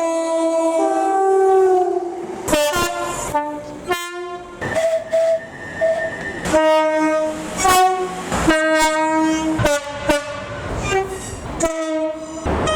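Train horns sounding a rapid series of short blasts, switching between high and low notes, loud and with sharp starts and stops.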